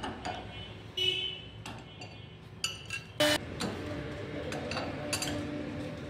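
A CNC router running steadily as it carves a wooden panel, with a low hum that settles into an even tone through the second half. Several sharp metallic clinks and taps ring out over it; the loudest come about a second in and just past three seconds in.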